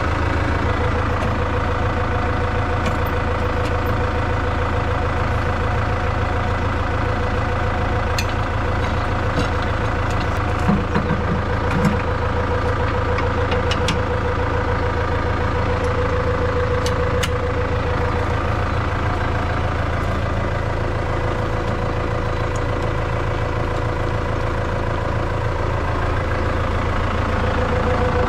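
Farm tractor engine running steadily, with a few short knocks about eleven seconds in.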